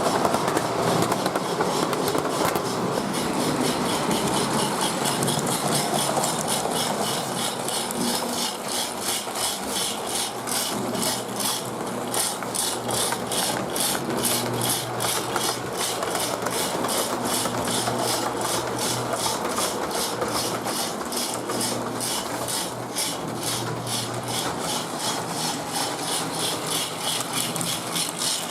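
Lionel MPC-era Pennsylvania 2-4-2 O gauge steam locomotive running with its mechanical steam-sound unit (the 'rock tumbler'), giving an even rasping chuff several times a second over the hum of its motor and the rolling of the wheels on the track.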